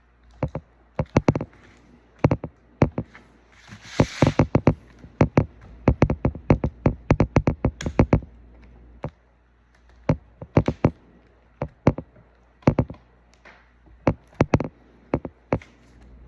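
Irregular sharp clicks and taps of a prying tool working side to side at a laptop's touchscreen ribbon-cable connector to unseat it. The taps come thickest in the middle, with a brief rustle about four seconds in, and thin out toward the end.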